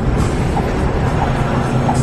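Music with a steady beat over the steady low rumble of a moving bus.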